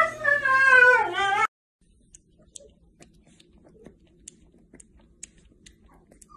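A Siberian husky vocalizing in a long, wavering whine-howl that bends up and down in pitch and cuts off abruptly about a second and a half in. Then a husky puppy lapping milk from a mug makes faint, scattered soft clicks.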